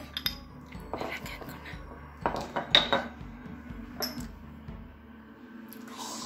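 Glass bottle and shot glasses clinking and knocking on a kitchen countertop while sauces are poured into the shot glasses: a handful of sharp clinks, the loudest cluster about two to three seconds in. Faint background music with a steady beat runs underneath.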